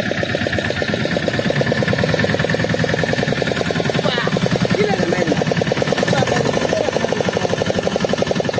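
Fishing boat's engine running steadily, a fast, even pulsing chatter.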